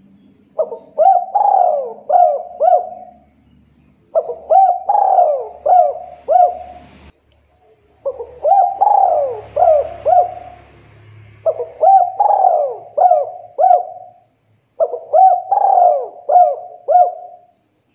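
Spotted dove (tekukur) cooing: five repeated phrases of about five short coos each, a second or two apart.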